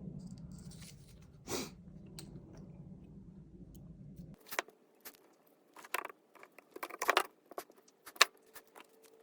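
Small metallic clicks and rattles of hands working speaker wire and crimp-type electrical connectors. A low steady hum runs underneath for about the first four seconds, then stops abruptly.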